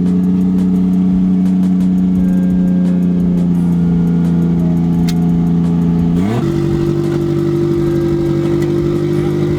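Car engine held at steady revs, then rising quickly to a higher steady pitch about six seconds in.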